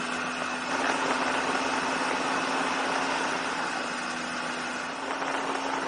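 Triumph Tiger 800's three-cylinder engine running at a steady speed on the move, under a rush of wind noise on the camera's microphone. It gets a little louder about a second in.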